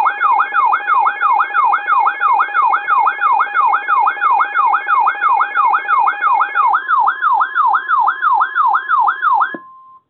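Electronic alert tone from a weather alert radio: a siren-like falling sweep repeating about three times a second, over steady tones that stop about seven seconds in. It ends on a brief steady tone and cuts off.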